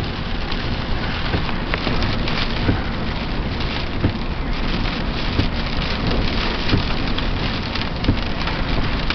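Heavy rain drumming steadily on a moving car's roof and windshield, heard from inside the cabin, with a low rumble underneath.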